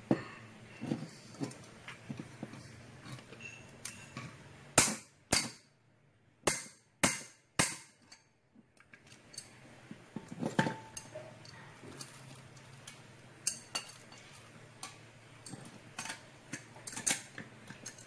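Hand tools knocking and clinking against the metal housing of a washing machine spin-dryer motor while its brake shaft assembly is pried loose: scattered clicks and scrapes, with five sharp metallic clanks between about five and eight seconds in.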